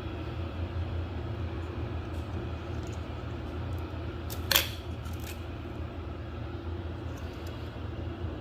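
A steady low mechanical hum, with one sharp clink about four and a half seconds in and a fainter click just after.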